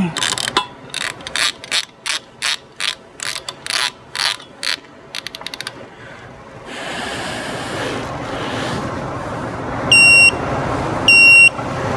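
Ratchet of a torque wrench clicking in quick strokes as the pump impeller's 3/4-inch stainless lock screw is run down, for about the first five seconds. Then a steady hiss, and two short high beeps near the end.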